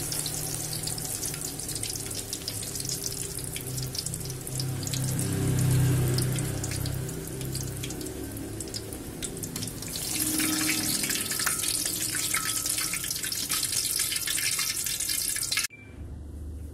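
Tofu and tempe deep-frying in hot oil in a wok: a steady sizzle with dense crackling that grows louder about ten seconds in, then cuts off suddenly near the end.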